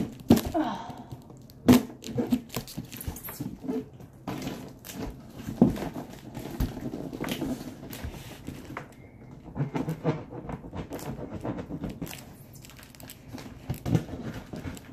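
A large cardboard shipping box being worked open by hand at its top flaps: irregular scraping, rustling and crinkling of cardboard, with several sharp knocks against the box.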